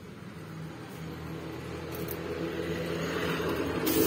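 A vehicle engine running and growing steadily louder as it draws near, with a loud rush of hissing noise starting near the end.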